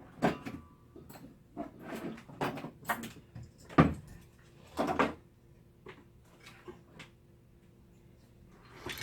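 A scattered series of knocks and clatters from things being handled and set down, the loudest about four seconds in. A faint steady hum runs underneath.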